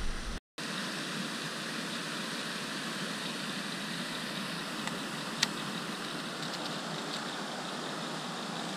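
Steady, even rushing hiss of outdoor background noise, after a brief dropout near the start. A single sharp click comes about five and a half seconds in, with a few faint ticks after it.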